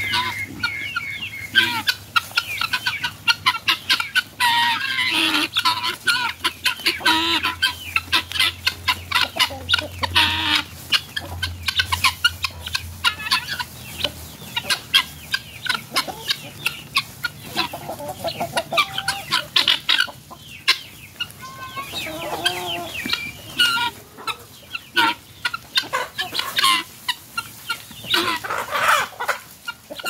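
A flock of helmeted guinea fowl calling: long runs of harsh, rapid repeated notes, many overlapping, with chickens clucking among them.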